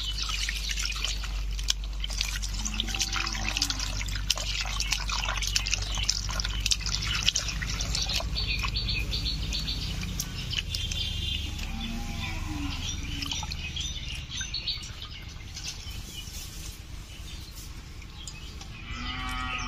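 Small sea fish being washed by hand in water: splashing and sloshing with many short splashes and clinks, busiest in the first half and thinning out after that.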